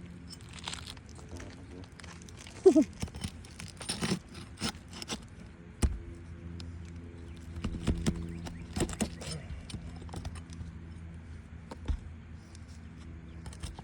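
Scattered clicks, knocks and scrapes of hand tools prying at and pulling nails from asphalt roof shingles, over a steady low hum. A short pitched sound about three seconds in is the loudest moment.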